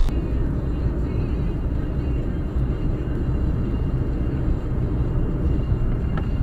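Steady road and engine drone of a moving car, heard from inside its cabin through a dashcam's microphone.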